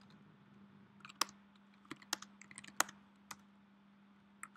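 Typing on a computer keyboard: irregular keystrokes entering a shell command, with two louder clicks, one a little over a second in and one near three seconds in. A steady low hum runs underneath.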